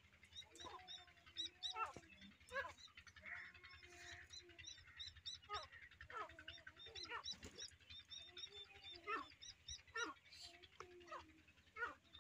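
Grey francolin (teetar) chicks calling: a fast run of short, high peeps mixed with lower drawn-out calls and quick falling notes.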